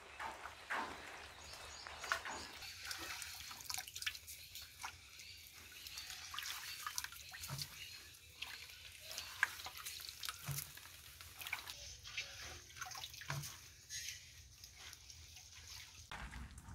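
Faint, scattered wet drips and small splashes as handfuls of boiled chicken meat and rice husk are lifted from a steel pot and dropped into a clay pot.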